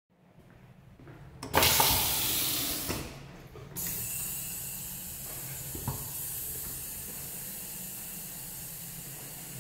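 Restroom faucet running water into a sink basin. The rush of water starts suddenly about a second and a half in and is loudest at first, drops away briefly around three seconds, then comes back and keeps running as a steady hiss.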